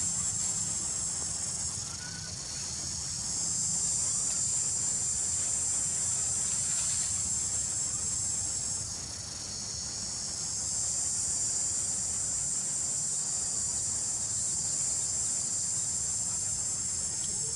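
Loud, high-pitched insect chorus, swelling and fading back a few times, over a low steady rumble.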